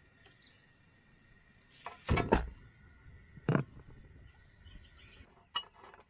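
A few short, sharp knocks. The loudest come as a quick cluster about two seconds in, with single knocks at about three and a half and five and a half seconds, over a faint steady background.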